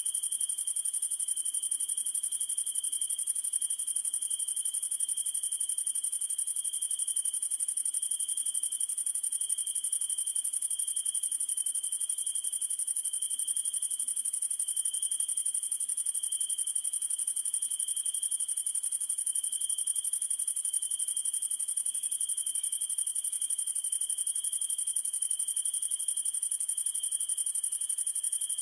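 Summer-night insect chorus of crickets trilling steadily: one very high-pitched continuous trill over a lower, slightly wavering one.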